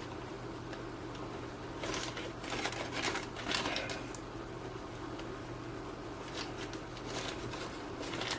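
Light handling noises, short rustles and scrapes of small parts being moved about, in two clusters, over a steady low hum.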